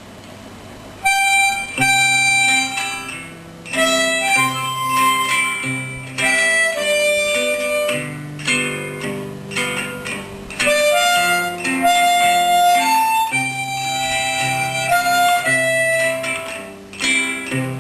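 Instrumental music: a melody of held notes over plucked guitar and a stepping bass line. It comes in fully about a second in.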